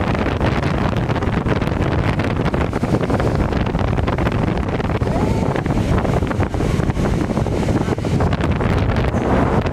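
Wind buffeting the phone's microphone in uneven gusts, over the steady rushing roar of Niagara Falls.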